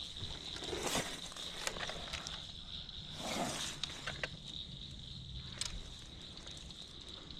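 Crickets chirping in a steady high trill, with a few short sharp clicks and a brief rustle a little past three seconds in.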